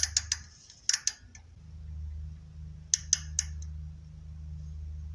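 Micrometer ratchet thimble clicking as the spindle is run down onto a turned steel bar: three short bursts of a few quick clicks each. A steady low hum runs underneath.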